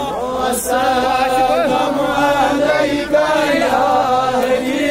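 Men chanting a devotional naat in praise of the Prophet Muhammad: a lead voice on a microphone and other men's voices hold long sung lines with wavering pitch.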